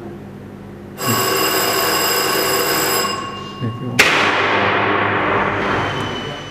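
A loud electric warning alarm rings for about two seconds. Then comes a single sharp bang, the loudest sound, as the 100 kA short-circuit fault current is applied and the trefoil cables jerk against their stainless steel cleats. The noise of the shot dies away over the next couple of seconds.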